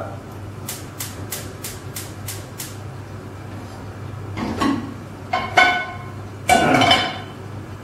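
Gas hob's electric spark igniter clicking about three times a second for a couple of seconds, then a metal pot and lid set down and clanked on the burner three times, each knock ringing briefly.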